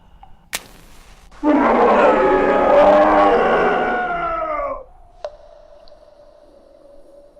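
A sharp click, then a loud roar of a large animal lasting about three seconds, its pitch sagging as it ends. A faint steady tone follows.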